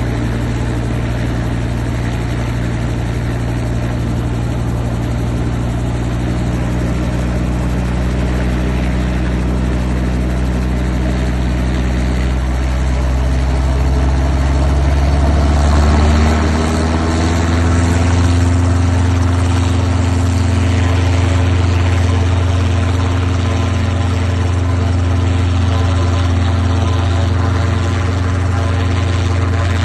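Robinson R22 Beta II helicopter running on the ground, its four-cylinder Lycoming piston engine and two-blade main rotor turning steadily. About halfway through, the pitch rises and it gets a little louder as engine and rotor speed come up, then it holds at the higher speed.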